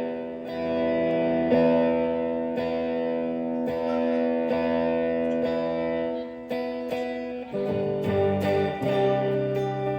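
Electric guitar played through a Boss Dual Overdrive (SD-2) pedal: chords struck about once a second and left ringing, then a change to lower, choppier picked notes about seven and a half seconds in.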